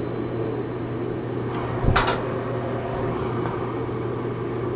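Blower unit of a Sears Kenmore clothes dryer running steadily with a low hum, pushing air up a duct and out through a roof vent. A brief knock about two seconds in.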